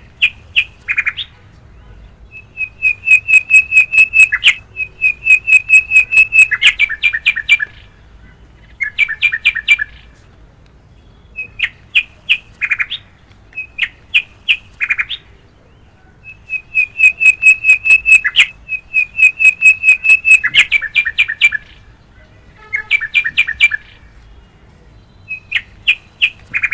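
Bird chirping in quick runs of short, high notes separated by pauses. The same recorded stretch of chirping repeats about fourteen seconds later, as in a looped soundtrack.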